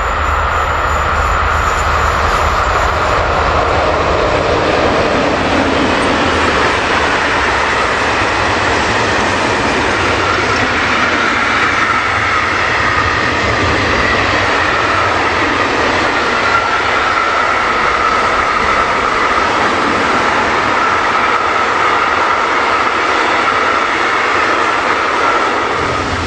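A long freight train passing behind an electric locomotive: a loud, steady rolling noise of wagon wheels on the rails.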